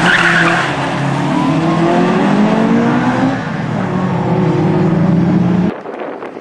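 Honda B16A1-engined MG ZR rally car driven hard, its engine revving and climbing in pitch as it accelerates, with a brief tyre squeal at the start. Near the end the sound cuts suddenly to a quieter, more distant engine note.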